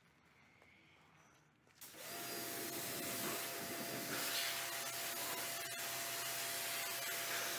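Near silence for about two seconds, then a Kärcher pressure washer starts up and runs, a steady motor tone under the hiss of its water jet rinsing snow foam off an alloy wheel.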